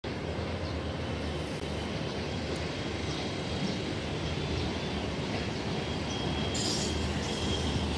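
Electric trains rolling slowly through a station yard: the steady running rumble of a Mumbai suburban local EMU and the Vande Bharat express on the tracks. A thin, high wheel squeal comes in about six seconds in.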